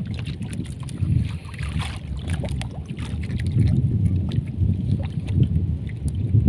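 Small fishing boat at sea, with a steady low rumble and scattered clicks and knocks as a longline is hauled in by hand over the gunwale.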